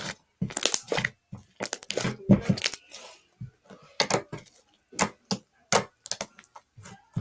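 Homemade slime being kneaded and squeezed by hand, making a string of sharp, irregular crackling pops and squelches, a few each second.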